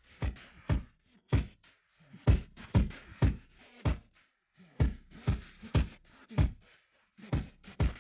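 Background music with a deep, heavy drum beat, a strong low hit a little under twice a second with short gaps in the pattern.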